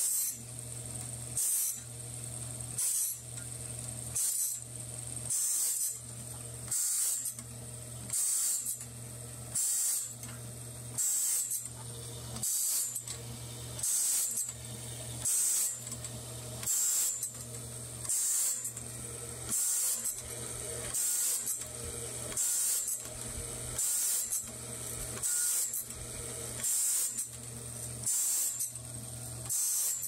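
Automatic band-blade sharpener grinding the teeth of a sawmill bandsaw blade. The grinding wheel hisses against one tooth about every second and a half as the blade is stepped along tooth by tooth, over the steady hum of the machine's motors.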